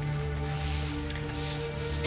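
Background music score of sustained, held notes over a low pulsing bed.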